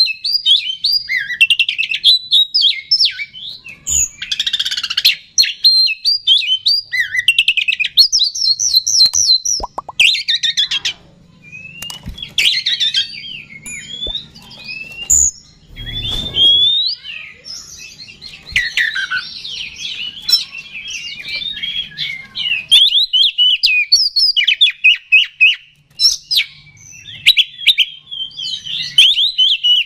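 Oriental magpie-robin singing a fast, varied song of whistled phrases and quick repeated chattering notes, with only brief pauses.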